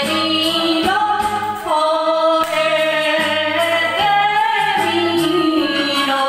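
A woman singing an enka song into a karaoke microphone over a backing track, holding long notes that waver with vibrato.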